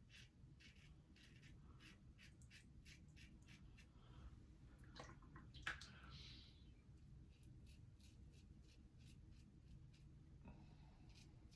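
Faint scrape of a Wilkinson Sword double-edge safety razor cutting through stubble in short, quick strokes, about four a second. The strokes pause twice, and a sharp tap comes just before the middle pause ends.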